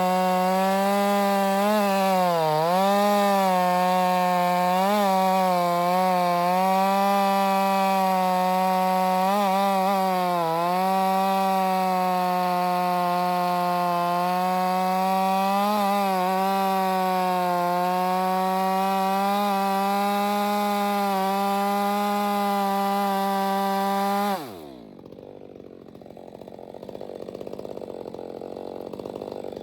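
Ported Stihl MS 462 two-stroke chainsaw held at full throttle, its pitch sagging briefly a few times as the chain pulls through wet spruce. About 24 seconds in the throttle is released and the engine drops to idle, then it starts revving back up near the end.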